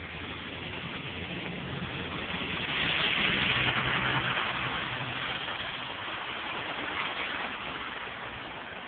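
Car passing on a wet road, tyre noise and engine hum swelling to a peak about three seconds in and then fading.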